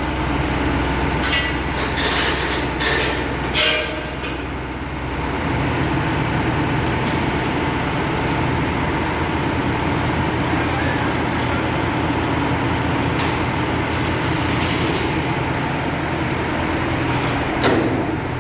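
A heavy engine running steadily, with several sharp metallic knocks in the first four seconds and another near the end. Its low hum changes pitch about five seconds in.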